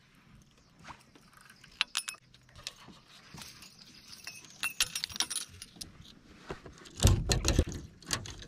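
Small metal clinks and jingles of fishing-lure hardware (spinner blade, hooks) being handled at the rod, in scattered light taps. Near the end come louder rustling and bumping as he moves about in the boat.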